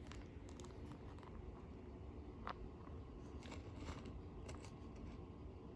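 Faint, scattered clicks and ticks of a clear plastic deli cup being handled on a wooden table, the sharpest about two and a half seconds in, over low room noise.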